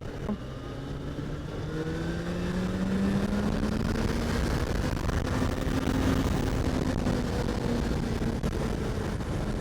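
Yamaha FZ6 Fazer's 600cc inline-four engine pulling as the motorcycle gathers speed, its note rising over the first few seconds and then holding fairly steady.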